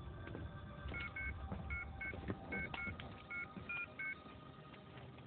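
Mobile phone keypad beeping as a number is dialled: nine short two-note touch-tone beeps over about three seconds, starting about a second in.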